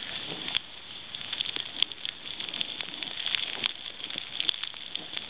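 Snowboard sliding through deep powder snow: a steady hiss of snow with many irregular crackles and ticks.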